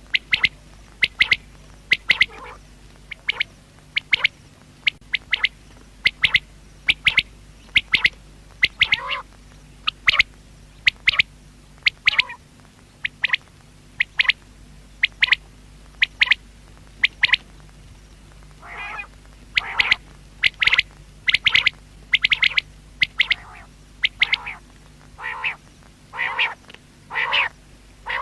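Common quail calling over and over: a run of short, sharp notes, roughly one to two a second, with lower, softer calls mixed in during the second half.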